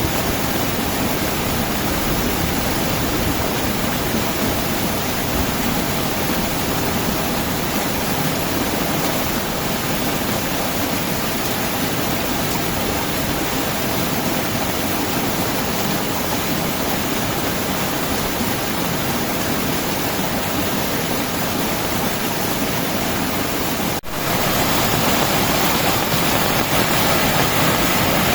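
Heavy rain pouring down steadily, a dense even hiss. Near the end it breaks off for an instant and carries on slightly louder.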